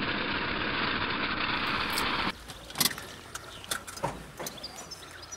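Ford van engine running with a steady rushing noise that cuts off abruptly about two seconds in. After it, quieter sounds inside the van's cab with a few sharp clicks and knocks.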